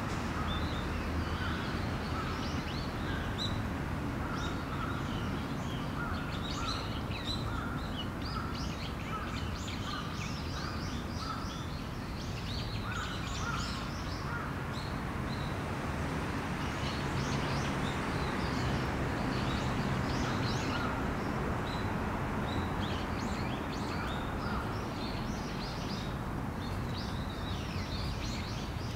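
Outdoor park ambience: small birds chirping and twittering throughout, with a run of short, evenly repeated calls in the first half, over a steady low background rumble.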